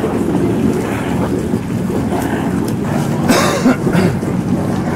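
Boat engine running low and steady, with wind buffeting the microphone. A short burst of hiss comes about three and a half seconds in.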